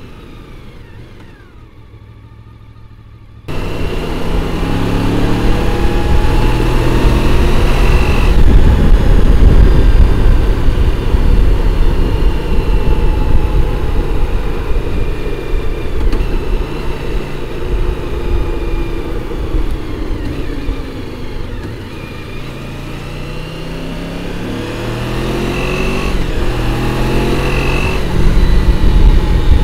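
Honda VFR750F's V4 engine under way, picked up by a microphone at the rear of the bike: it pulls up through the gears in rising steps, eases off, then accelerates and changes up again, over wind and road rumble. The first few seconds are quieter and dull, then the sound jumps suddenly louder.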